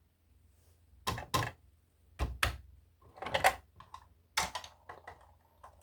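Sharp clicks and knocks of small objects being handled. Three quick pairs come about a second apart, then a single knock and several lighter ticks.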